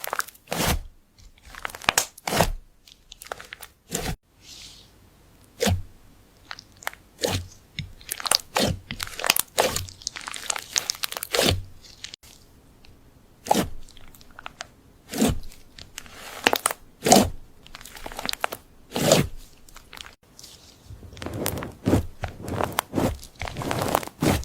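Crisp ASMR crunching and crackling, one short burst after another at an uneven pace, with sharp snaps between longer crackly stretches.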